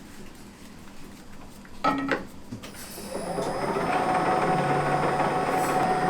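An electric kitchen machine's motor starts up about three seconds in and settles into a steady hum, just after a short metallic clank.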